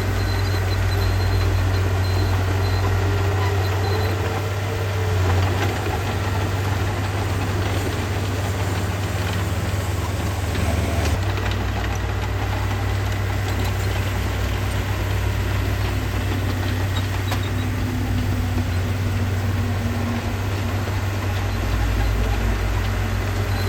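Diesel engine of heavy earthmoving equipment running steadily, its low sound holding an even level throughout.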